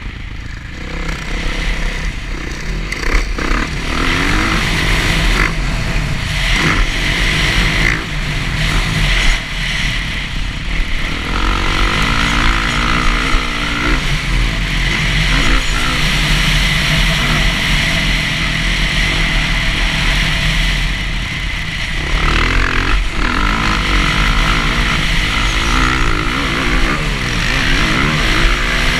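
Dirt bike engine revving up and falling off again and again as the bike is ridden hard around a motocross track, with wind rushing over the mounted camera's microphone.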